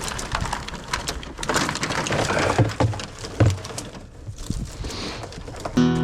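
Tangled scrap electrical wire being handled and pulled about, a dense crackling and clicking with a couple of dull thumps around the middle. Guitar music starts near the end.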